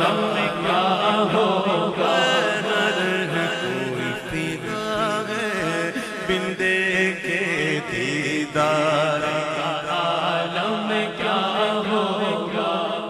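Urdu naat sung in a chant-like style by men's voices through a microphone, several voice lines overlapping over a steady low hum.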